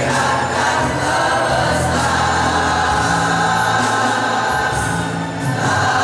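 All-male student choir singing together, holding long notes.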